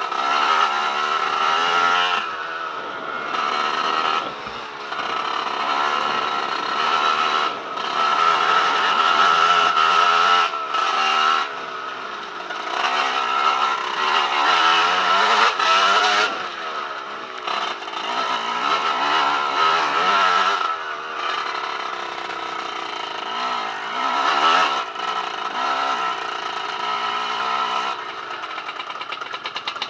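Dirt bike engine being ridden over a rocky trail, revving up and down with the throttle shut off briefly every few seconds. Near the end it settles to a lumpy idle as the bike stops.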